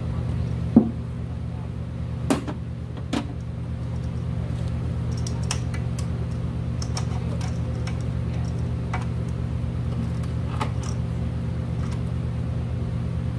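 Gloved hands handling rubber fuel hoses and fittings in a car's engine bay. There are three sharp clicks and knocks in the first three seconds, then lighter scattered ticks, over a steady low hum.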